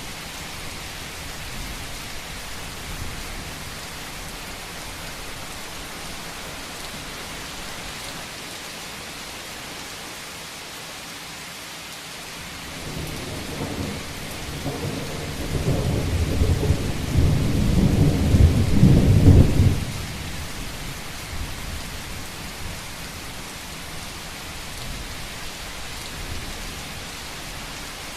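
Steady heavy rain falling on a roof, with a roll of thunder that rumbles in a little before halfway, builds to its loudest, and breaks off suddenly about two-thirds of the way through.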